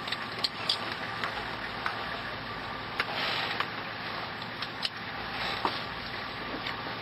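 Steady running noise inside a 4WD's cab, with frequent sharp clicks and rattles from the vehicle.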